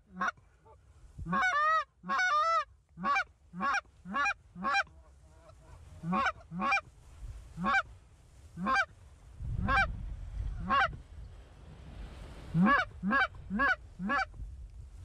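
Canada geese honking, a series of short rising honks, some in quick runs, with a stretch of wind rumble on the microphone about two-thirds of the way in.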